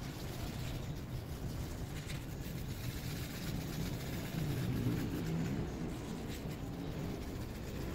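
Hand wet-sanding of a cloudy plastic headlight lens with an abrasive disc on a stamper tool: a steady rubbing with a low rumble, louder about halfway through.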